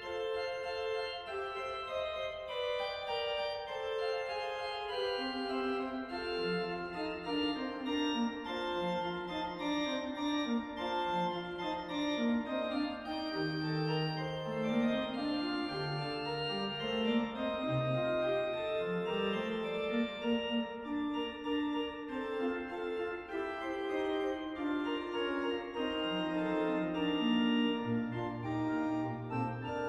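Sampled pipe organ playing a fugue in several interweaving voices. The Hauptwerk sample set of the Eisenbarth organ of St. Bartholomäus, Friesach, is played from a Sonarte console. A lower voice joins about six seconds in, and deep bass notes sound near the end.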